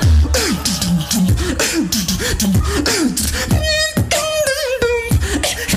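Solo beatboxer performing: deep sub-bass under sharp clicks and snares, with a run of falling pitched bass sweeps. A little after halfway comes a warbling, pitched vocal effect, then a held tone that slides down.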